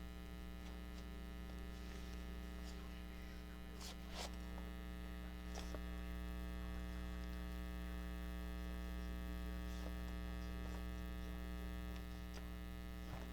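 Steady electrical mains hum on the recording, with a few faint ticks and rustles of needle, thread and paper being handled, about four seconds in and again nearly two seconds later.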